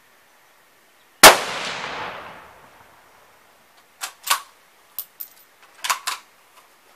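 A single rifle shot from a scoped, bipod-mounted rifle, with its report echoing and dying away over about a second and a half. A few seconds later come several short, sharp clicks and clacks.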